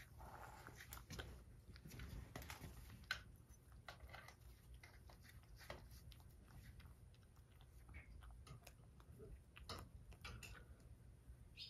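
Cat eating a snack from a ceramic bowl: faint, irregular chewing and mouth clicks.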